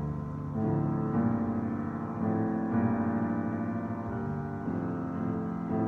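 Piano playing held chords, moving to a new chord every second or so.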